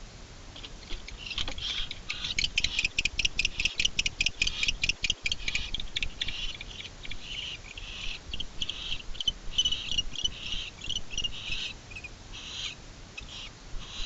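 Barn owls of a mated pair exchanging calls at the nest: a rapid run of short, high calls, about six a second, that from about six seconds in gives way to slower, irregular calls.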